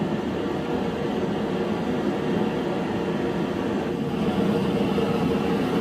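A steady machine hum, like a fan running, with an even low drone that does not change.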